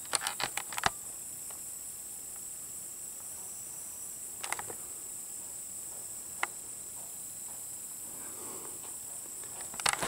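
Steady high-pitched insect chirring over a faint outdoor hiss. Sharp handling clicks come in a quick cluster about a second in, twice more mid-way, and as a louder jumble of knocks at the end as the camera is swung away.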